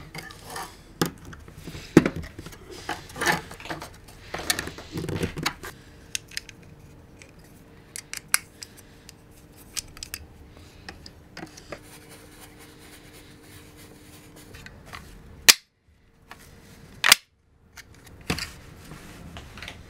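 Handling and assembly of 3D-printed plastic dust-shoe parts and pliers: a run of sharp clicks, taps and short scrapes, with two loud clicks and two brief dead-silent gaps near the end.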